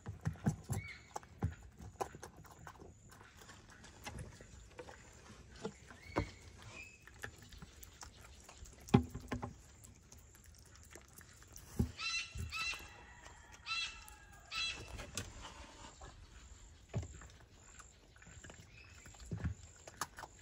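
Foxes feeding from stainless steel bowls on a wooden platform: scattered knocks and clinks of bowl, food and paws, the loudest about nine seconds in. A run of high chirping calls comes in the middle.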